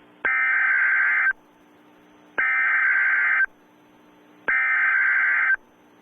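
Emergency Alert System SAME header: three bursts of digital data tones, each about a second long with about a second between them. The header is the coded start of the alert, carrying its event type and area.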